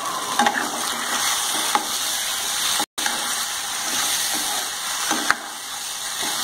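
Chicken masala sizzling in a nonstick kadai while a ladle stirs it, with a few short scrapes and knocks of the ladle on the pan; the masala is being cooked down until dry. The sound cuts out for an instant about halfway.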